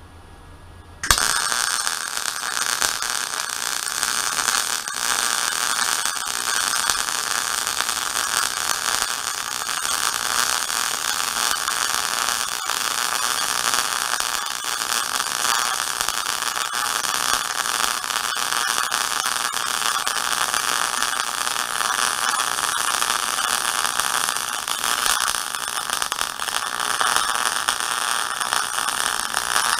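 Gas-shielded MIG welding arc from a Chicago Electric MIG 170 with an HTP torch, running a bead on 3/16-inch steel plate. The arc strikes abruptly about a second in and then crackles continuously at a steady level.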